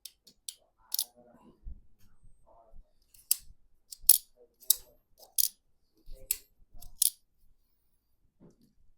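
Sharp metallic clicks and taps of small knife parts and tools being handled during folding-knife reassembly, about nine of them at irregular intervals, the loudest about four seconds in.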